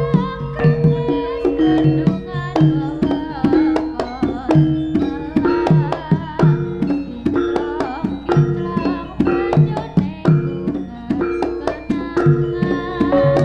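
Live Javanese jaranan ensemble music: kendang hand drums beat a dense, driving rhythm of sharp strokes over held gong and metallophone tones, with a wavering melody line on top.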